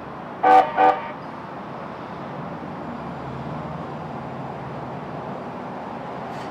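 Horn of a Type IV MAX light-rail train sounding two short toots, followed by a low, steady hum as the train starts to roll slowly.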